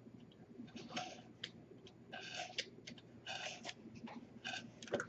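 Craft knife blade cutting through the paper wall of a small model cube in several short, scratchy strokes, each under a second.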